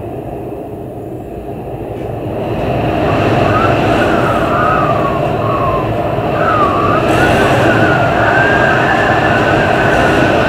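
Storm wind gusting hard, building up about two and a half seconds in, with a high whistle that wavers up and down as the wind howls.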